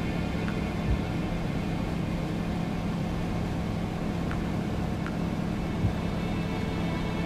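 Bushcat light-sport aircraft's engine and propeller droning steadily in cruise during a steep banked turn, heard from inside the cockpit. There are two brief low bumps, about a second in and near the end.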